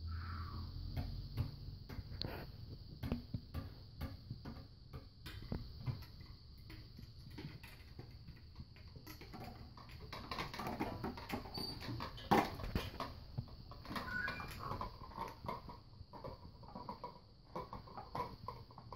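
A Labrador puppy playing among toys hung in a PVC-pipe play cube: scattered knocks, taps and rattles as it bumps and tugs at them, the sharpest knock about twelve seconds in, over a steady faint high hiss.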